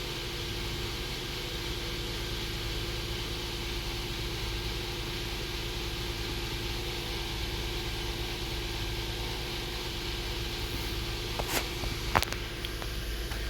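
2015 Kia Sorento's 3.3-litre GDI V6 idling steadily, with a few sharp clicks near the end.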